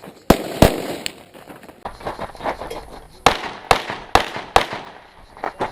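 Handgun shots at a practical shooting stage, each with a short echo. Two come close together near the start, then a steady string of four about half a second apart.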